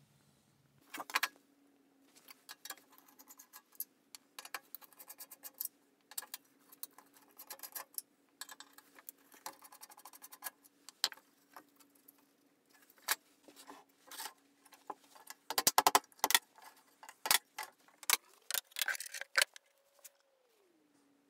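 Screwdriver working the brass screws out of a handsaw's handle: scattered small clicks and scrapes of metal on metal, a few loud knocks about three-quarters through, then the loose brass saw screws clinking together in a hand near the end. A faint steady hum sits underneath.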